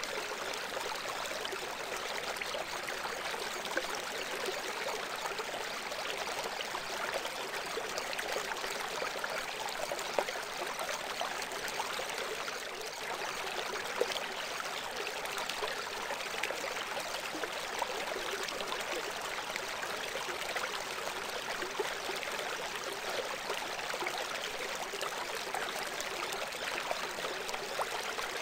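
Steady recording of running water, like a babbling stream, with no pauses or changes: the cover sound of a subliminal audio track, with the hidden messages kept beneath it.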